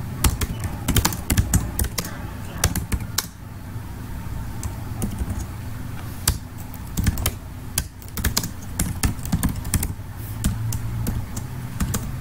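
Computer keyboard being typed on, irregular clicks of keystrokes with short pauses between runs, over a low steady hum.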